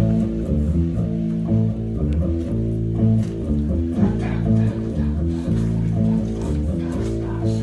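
Noise rock band playing a repeating riff driven by low bass notes that change pitch every half second or so, at a steady level.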